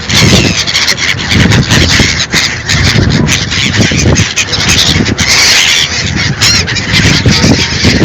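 A flock of hungry birds clamouring for food: many loud, harsh calls overlap continuously over a steady background rush.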